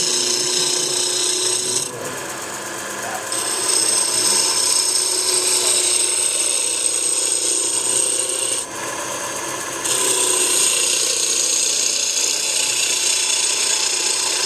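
Wood lathe running while a gouge cuts the spinning wooden blank, roughing it down to a cylinder. A steady hiss of cutting sits over the lathe's hum. The cutting drops out twice briefly, about 2 s in and about 9 s in.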